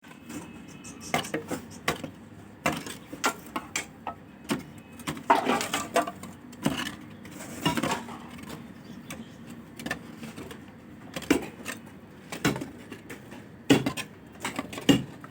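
Irregular sharp knocks and clatter of hard objects being struck or handled, sometimes in quick runs.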